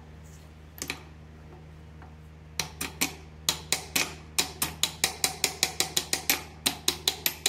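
Small hammer tapping metal on metal on the top of a Singer 27 sewing machine's stuck presser bar, driving it down to free it. Two light taps about a second in, then steady sharp taps about four a second from a little before three seconds in.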